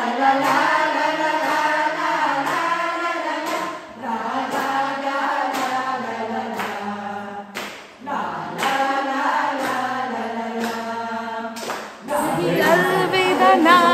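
Soliga tribal singers, men and women, singing a folk song together as a group, in phrases with short breaks about every four seconds.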